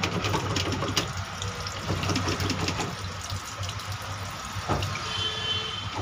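Dirty water carrying food waste gushing out of a choked drain outlet and splashing across a tiled floor, with many small splashes; the drain line is blocked and backing up.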